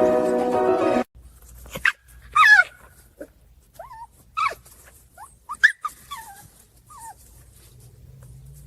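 Music stops abruptly about a second in. Then a wolf pup gives a scattered series of short, high whimpers and yips, most falling in pitch, over the next few seconds.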